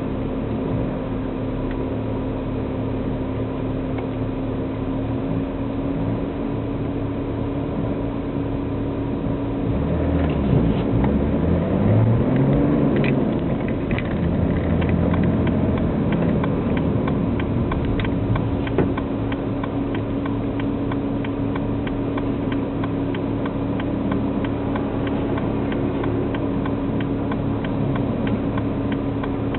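BMW E90 diesel straight-six driving through a straight-piped cat-back exhaust with no silencer, heard from inside the cabin: a steady exhaust drone. About ten seconds in, the engine note rises and grows louder under acceleration for a few seconds, then settles back to a steady cruise.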